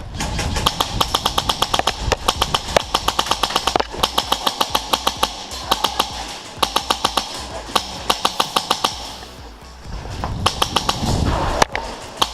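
Rapid full-auto bursts from airsoft rifles with Polarstar HPA engines, about eight sharp cracks a second in several long strings with short pauses, over background music.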